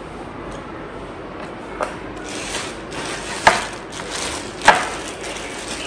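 Plastic packaging crinkling, with two sharp knocks a little over a second apart, as a bagged stack of corn tortillas is handled on a wooden cutting board.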